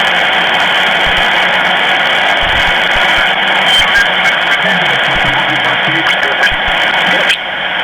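Shortwave communications receiver's speaker giving steady band noise and static on the 40-metre amateur band, cut off sharply above the voice range by the narrow sideband filter, with weak garbled signals and faint wavering tones under the hiss. The noise drops briefly near the end.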